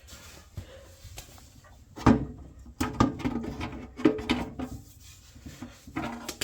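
A run of knocks and clunks with some scraping as the fuel tank is worked free of a pressure washer's small petrol engine; the loudest knock comes about two seconds in.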